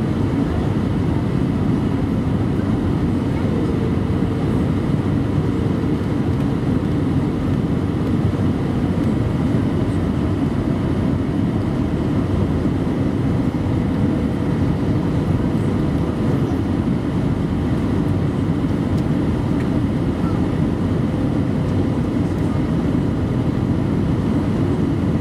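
Steady cabin noise inside an Airbus A319-112 descending to land: the low roar of its CFM56 turbofan engines and the rush of air along the fuselage, with a faint steady hum through part of it.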